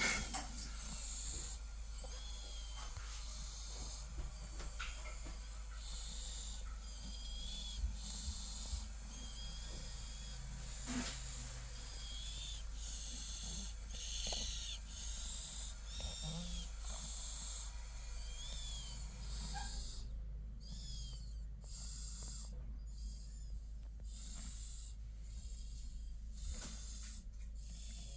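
A 9-month-old baby snoring softly through a nose blocked by a head cold. The breaths come quick and even, with small high whistles on some of them.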